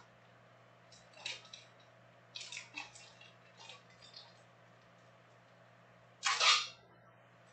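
Trading cards in plastic sleeves and top loaders being handled and set down on a table: a few soft clicks and rustles, then a louder plastic rustle of about half a second near the end.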